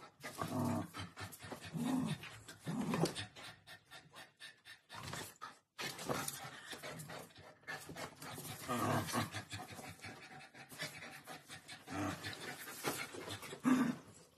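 Rottweiler panting, with short low grunting sounds coming in bursts a few times.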